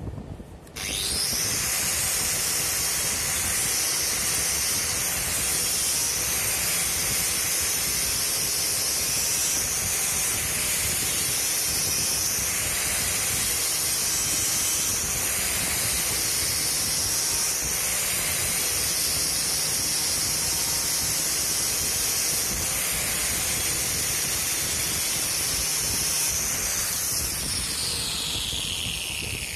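Bosch GWS 11-125 angle grinder with a knotted steel wire wheel brush, switched on about a second in and run at full speed against the edge of a wooden board. Its high whine sags every couple of seconds as the brush bites into the wood, with a scrubbing rasp. Near the end it is switched off and whines down in falling pitch.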